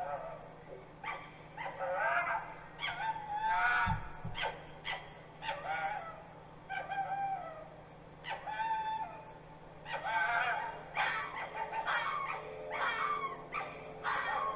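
A dog whining and crying in short calls that bend up and down in pitch, repeated roughly once or twice a second.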